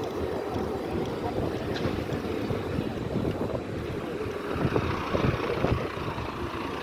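Wind rumbling on the microphone outdoors, an uneven low rumble that rises and falls in gusts.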